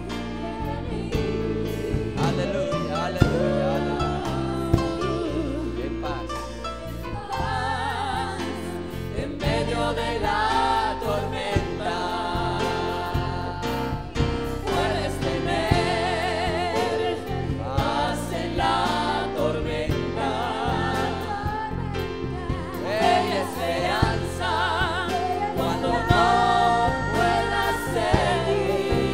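Live Christian worship music: a band led by a Yamaha MM8 keyboard, with voices singing a worship song that come in about seven seconds in.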